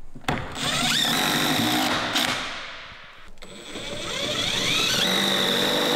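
Cordless power driver running in two long bursts with a dip between, its motor whine rising as it speeds up while driving bolts that fix large climbing volumes to the wall.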